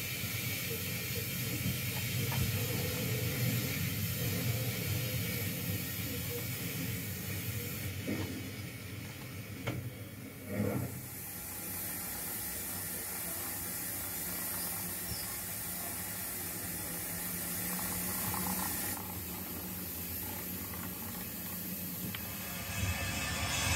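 Steady hiss of steam from an O gauge model steam locomotive, with a few short knocks just before halfway.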